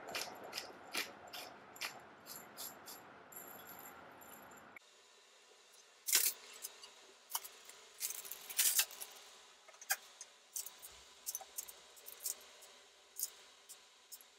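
A hand-twisted pepper grinder crunching out pepper in a steady run of clicks for the first five seconds. Then aluminium foil crinkles and crackles irregularly as food is pressed into a foil-lined tray.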